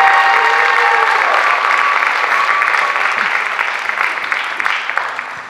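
Audience applauding, with a few voices over it in the first second or so; the clapping dies away near the end.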